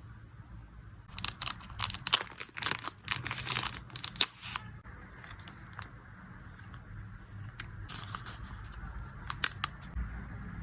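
Plastic packaging for photocards crinkling and rustling as it is handled. A dense run of crackles lasts from about one second in to nearly five seconds, followed by quieter handling and a few single clicks.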